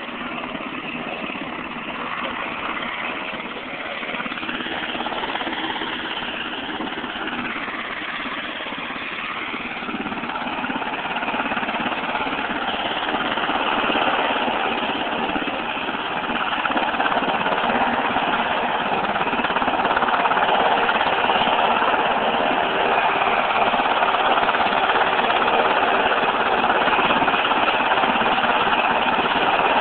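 A UH-60 Black Hawk helicopter running on the ground, its twin turboshaft engines whining under the rotor noise. The sound grows louder about a third of the way in and then holds steady.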